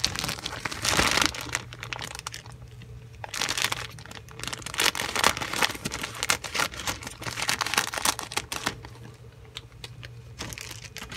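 Thin plastic bag around a model kit sprue crinkling as it is handled and cut open with scissors, in irregular crackly bursts with many small clicks.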